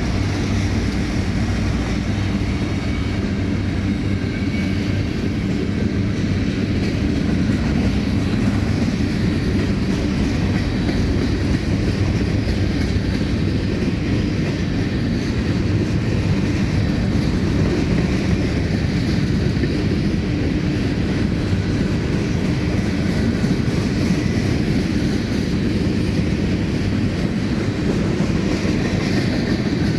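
Empty covered grain hopper cars of a long freight train rolling past, their steel wheels running steadily on the rails.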